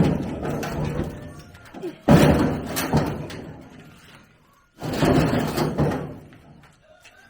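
Three heavy bangs about two and a half seconds apart, each a sudden hit that fades out over a second or two.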